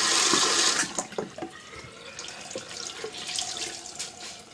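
Water running hard from a sink tap, shut off just under a second in, then drips and small splashes and clicks in the sink.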